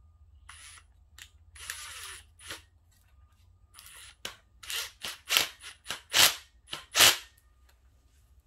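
Cordless impact driver run in a series of short trigger bursts, driving small button-head screws into a wooden batten. The bursts are brief and sharp and grow louder toward the end, the last three the loudest.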